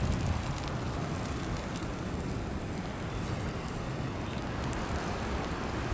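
Wind blowing over the microphone in a snowstorm: a steady low rumble with faint scattered crackles.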